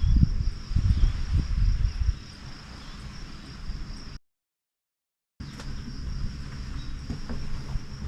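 Steady high-pitched insect chirring over a low, gusty rumble of wind on the microphone. The sound cuts out completely for about a second near the middle, then the chirring and rumble return.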